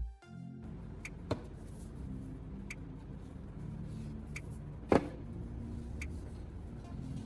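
A steady low background rumble with a few light clicks scattered through it and one sharper, louder knock about five seconds in, like small objects such as a glue bottle being handled and set down on a work surface.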